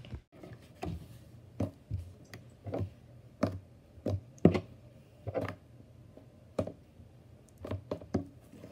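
Hands slapping and patting fluffy slime against a tabletop: a dozen or so short, irregular slaps, one or two a second.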